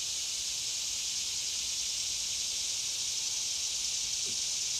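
Steady, high-pitched drone of an insect chorus from the surrounding woods.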